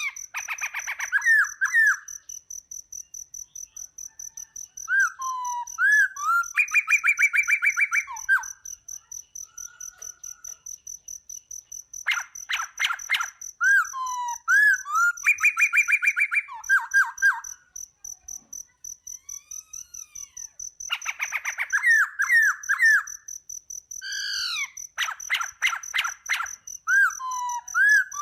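Birds singing in short phrases of chirps and fast trills, with pauses between phrases, over a continuous high-pitched insect trill.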